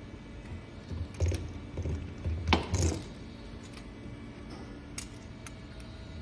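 Several separate metallic clinks and knocks with low thuds, the loudest about two and a half to three seconds in, as the Finn-Power P16 AP air-driven hose crimper is released after a crimp and the crimped hose is handled, over a faint steady hum.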